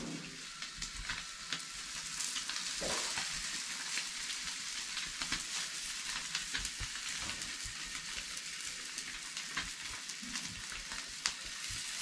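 Rice-flour- and rava-coated bangda (Indian mackerel) frying in shallow oil on a tava over a wood fire. It makes a steady sizzle, dotted with frequent crackles and pops as more oil is poured on.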